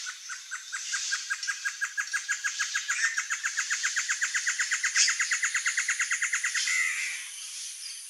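Male great antshrike singing: a long series of short hooting notes that speeds up and rises slightly in pitch, ending about seven seconds in with a rough, nasal snarl.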